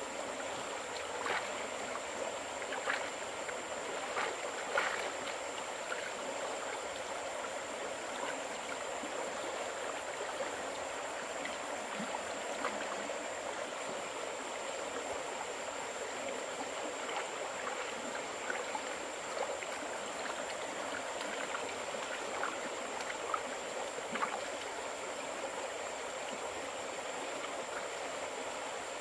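Steady rush of running water, like a small stream, with scattered small clicks through it.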